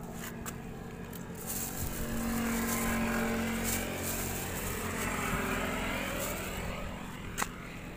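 A motor engine hums steadily and grows louder around the middle, with a few short crinkles from a plastic bag being handled.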